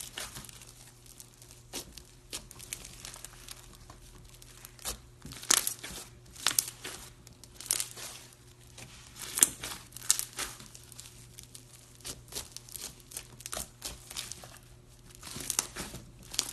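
Slime being squeezed and worked by hand, crackling and crinkling with irregular sharp snaps.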